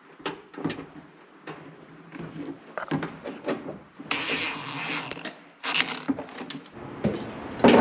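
Ridgid cordless driver running for about a second and a half in the middle, driving a screw into the sheet-metal cabinet of a new air handler. Before and after it come scattered clicks and knocks of handling, with a loud knock near the end.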